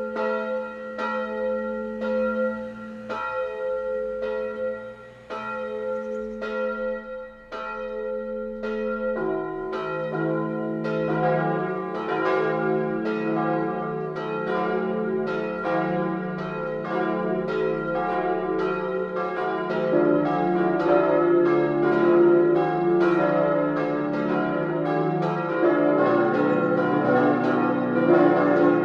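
Full peal of cast-steel church bells starting up: a single swinging bell strikes about once a second, then more bells join one after another from about nine seconds in, a deeper one near the end, building into a dense, louder ringing.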